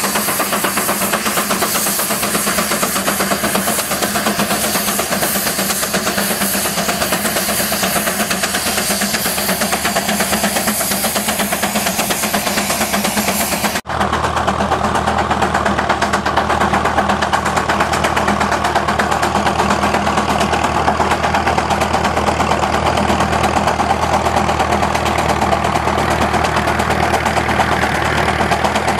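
Steam traction engine running steadily under load while pulling a plow, a continuous rapid exhaust beat over hiss. About halfway through the sound changes abruptly and the engine is heard from farther off, with a steadier low hum.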